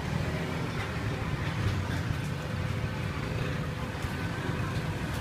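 Street background noise: a steady low rumble of traffic.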